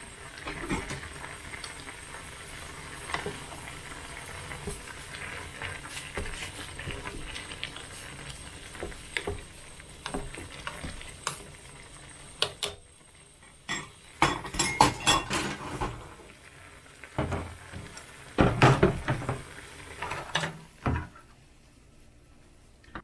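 Ramen broth bubbling steadily in a thin Korean aluminium pot over a gas burner. In the second half, chopsticks stir the noodles, clinking and scraping against the pot in clusters of quick clicks.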